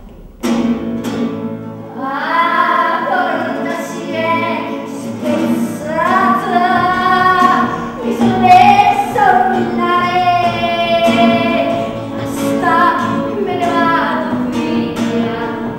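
A woman singing a theatrical song, accompanied by acoustic guitar strums.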